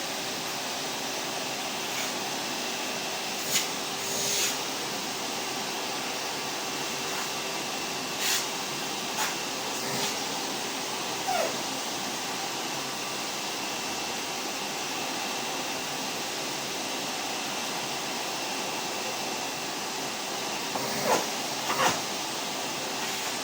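Vacuum cleaner running steadily: an even rushing noise with a faint hum. A handful of short, sharp sounds cut in briefly over it, several in the first half and two close together near the end.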